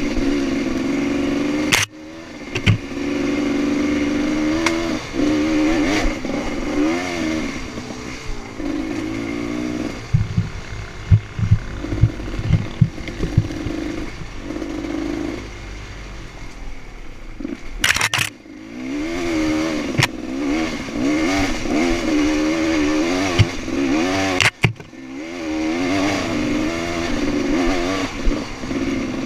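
Off-road dirt bike engine running under load on a trail, its pitch rising and falling with the throttle. About ten to fourteen seconds in, a run of low knocks and clatter comes through as the bike bounces over the ground.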